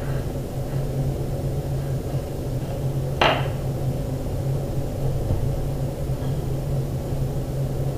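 Steady low background hum, with a single brief paper swish about three seconds in as a hand is swept down onto the drawing paper.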